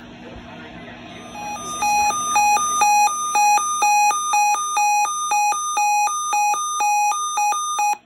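Weather alert radio sounding its alert alarm on receiving a severe thunderstorm watch. About a second and a half in, over faint radio hiss, it starts a loud beeping that alternates between a lower and a higher pitch about twice a second, and it cuts off suddenly at the end.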